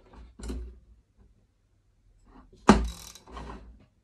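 Metal handling sounds from a drill stand being adjusted: a soft knock and rub, then, a little before three seconds in, a sharp knock followed by scraping.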